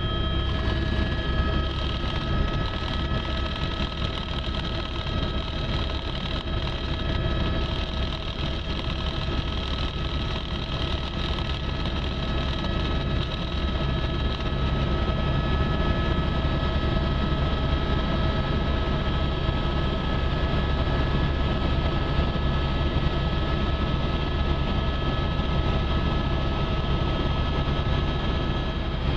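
Helicopter cabin noise in flight: a steady low rotor and engine drone with a high whine held at a constant pitch, heard from inside the cabin.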